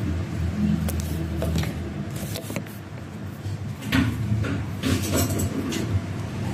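Scattered light knocks and clicks over a steady low hum.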